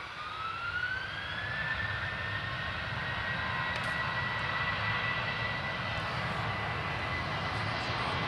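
Jet airliner engines spooling up for takeoff: a whine climbs in pitch over the first couple of seconds, then holds steady over a low rumble that grows louder.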